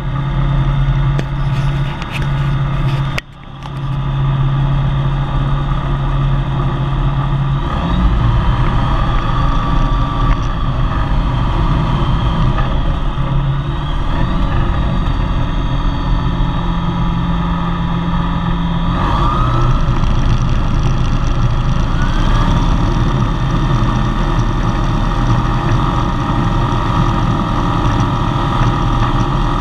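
Engine and propeller of a RANS S-7S light aircraft heard from inside the cockpit, running steadily, with a brief dip about three seconds in. About eight seconds in the power comes up for the take-off roll and stays there.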